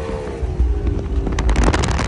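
Speedboat's outboard motor running at speed, with hull spray and wind; its pitch drops a little at the start. A little past halfway, wind buffeting on the microphone takes over.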